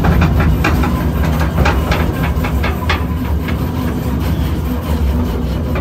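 Mine car train running on rails: a steady low motor hum with rapid, irregular clacking of the cars over the track.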